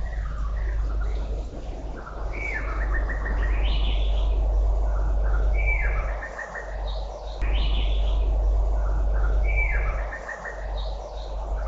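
A bird singing the same short phrase three times, about three and a half seconds apart: a run of quick chirping notes that ends on a higher note. Under it runs a steady low rumble.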